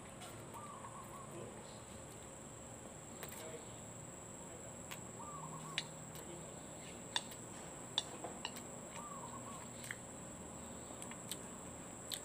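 Chopsticks clicking against a noodle bowl while eating, a handful of short sharp clicks, mostly in the second half.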